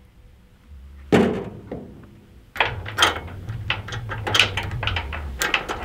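The cab door of a Bobcat 430 mini excavator slams shut about a second in. After that comes a run of metallic clinks and rattles as a tie-down chain is handled at the trailer.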